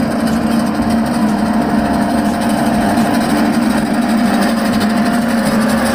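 Single-drum road roller's diesel engine running steadily, with a strong low hum.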